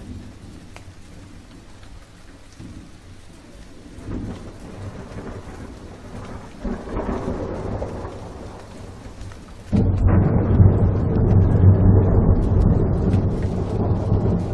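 Rain falling steadily, with low swells of thunder. About ten seconds in, a much louder, deep rumble of thunder and heavy rain sets in abruptly.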